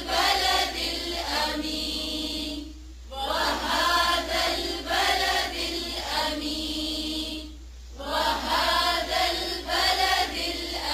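A group of voices reciting a Quranic verse together in a slow, drawn-out chant. There are three long phrases, with brief pauses about three seconds in and again about seven and a half seconds in.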